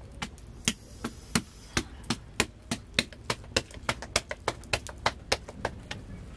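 A quick, uneven series of sharp hard strikes, about three to four a second, stopping shortly before the end.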